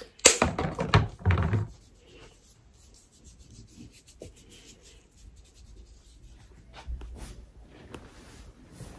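Close rustling and rubbing, loud for about the first second and a half, then faint scattered clicks and light rubbing.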